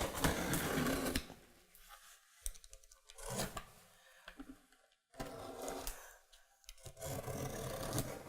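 An X-Acto craft knife cutting through packing tape on a cardboard box, scraping and rubbing in several short strokes with brief pauses between.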